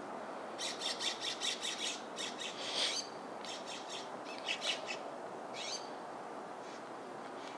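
American robin calling: two quick runs of sharp, high chirping notes, about five a second, then a single note, over a steady background hiss.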